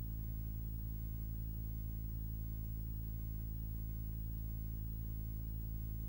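Steady low hum with a faint hiss and nothing else.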